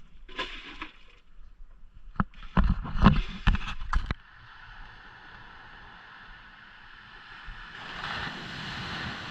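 Several loud low thumps on the microphone in the first few seconds, then a steady hiss of sea water washing, which swells louder near the end.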